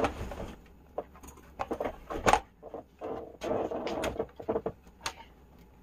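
Scattered light clicks, taps and rustles of small objects being handled and set down, with a louder knock about two seconds in.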